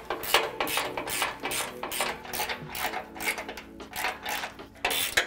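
Ratchet wrench clicking in quick repeated strokes, a few clicks a second, undoing the 18 mm bolts on the sway bar's frame mounts.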